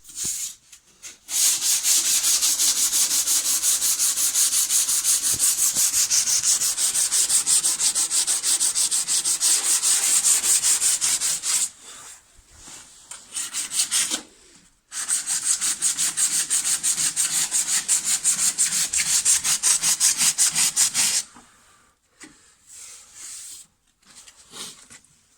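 Sanding on a car body: abrasive paper rubbing fast over the panel. It runs in two long spells about ten and six seconds long, with a short burst between them.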